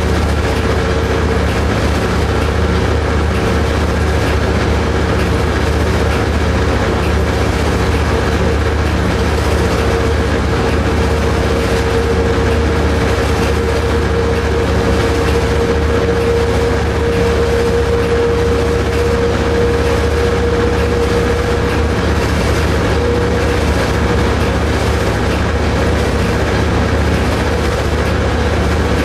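Steady running noise heard from inside the cab of a diesel commuter locomotive moving along the line. A low engine drone and the rumble of wheels on rail run under one steady, high-pitched whine, with no horn or sharp event.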